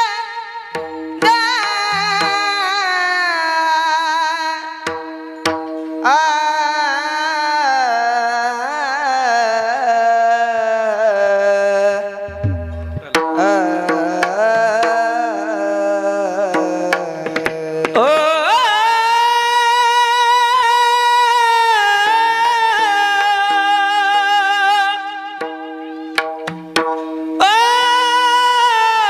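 Devotional bhajan singing in a very high voice, long held notes that glide and waver, over a steady drone with a few drum strokes.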